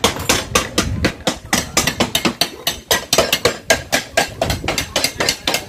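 Rapid, uneven hammer blows on metal, about six a second, as pots are hammered to knock out their dents.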